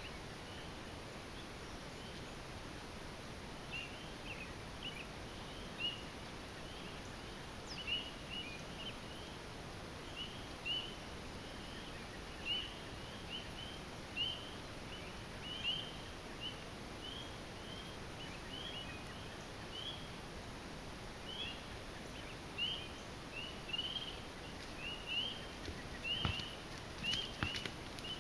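Outdoor evening ambience: a steady hiss under short, high chirping calls from small animals, repeating every second or so and more thickly later on, with a few sharp clicks near the end.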